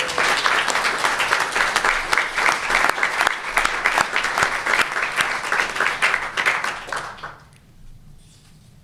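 Audience applauding, many hands clapping at once, dying away about seven seconds in.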